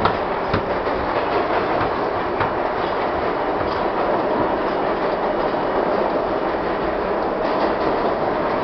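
Budd-built R-32 New York City subway car running through the tunnel, heard from inside the car: a loud, steady noise of the wheels on the rails, with a few sharp clicks.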